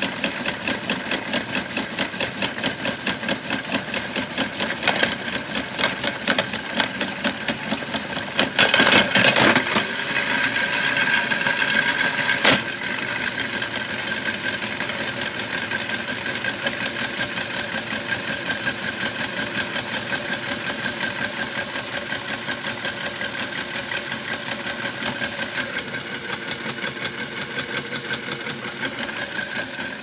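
washMATIC toy washing machine running, its small motor turning the plastic drum in a fast, even rhythm, with a toy phone tumbling and knocking against the drum, which it scratches. A louder clattering stretch comes about nine seconds in, and a sharp click a few seconds later.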